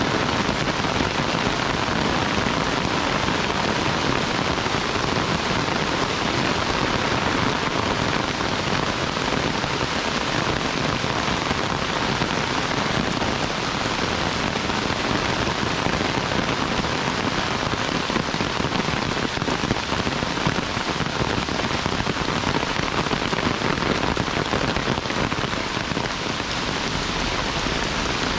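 Heavy rain falling steadily, an even wash of noise without a break.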